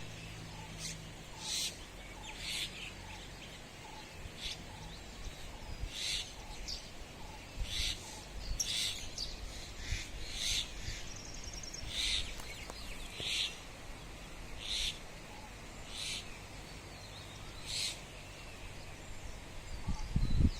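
Birds chirping: short, sharp calls repeated about once a second, with a brief rapid trill about eleven seconds in, over a low steady background rumble. A louder low thud comes near the end.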